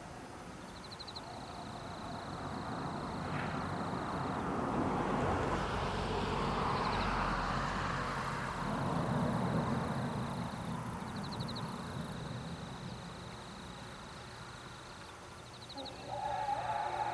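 Outdoor field ambience: an insect's high, thin trill that pulses in short bursts every few seconds, under a broad rushing noise that swells for several seconds mid-way and then fades.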